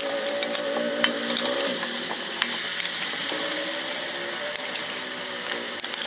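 Masala sizzling in an aluminium karahi as boiled beef marrow bones are ladled in, with short clicks of the metal ladle against the pots.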